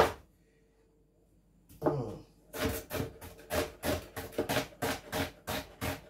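Large kitchen knife chopping an onion on a plastic cutting board: one sharp chop at the start, a pause, then a steady run of chops about three a second.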